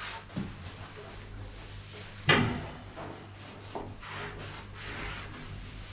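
Soft rubbing and scrubbing strokes of a cloth and scouring pad wiping the bathtub's edge and tile joint clean of old silicone residue. There is a sharp knock about two seconds in and a smaller one near the start.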